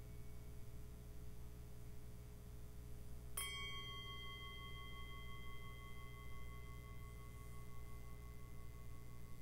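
Tingsha cymbals struck together once, about three seconds in, ringing on as several clear high tones that fade slowly over a steady low hum.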